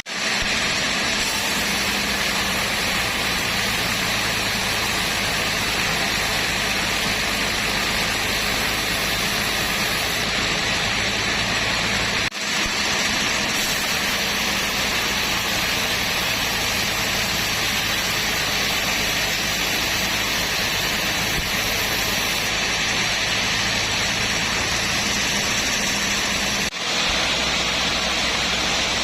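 Sawmill machinery running steadily: a loud, even hiss over a low hum, breaking off for an instant twice.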